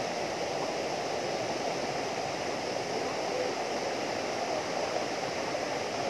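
Small waterfall pouring steadily over rock into a pool, a constant rushing of water.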